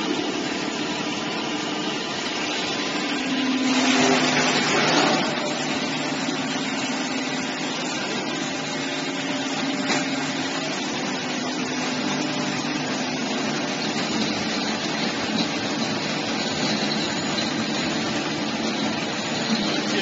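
Stainless-steel vertical colloid mill running steadily, its electric motor and rotor-stator wet-grinding soaked soybeans, with a steady hum. It gets louder for a moment about four to five seconds in.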